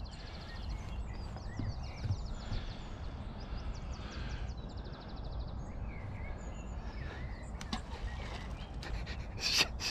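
Open-air ambience: a steady low rumble of wind on the microphone, with birds chirping and giving fast high trills several times. The cast of the fishing rod makes no clear sound of its own.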